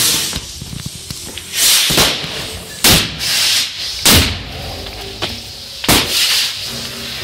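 A powerful large firework going off: about six loud bangs roughly a second apart, some trailing off in a short hiss.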